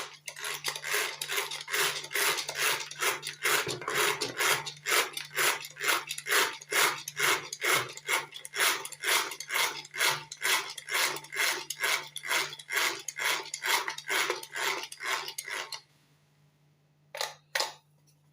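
A utensil stirring and scraping around a bowl of oils and conditioner mixture, about three strokes a second, stopping about 16 seconds in. Two short knocks follow near the end.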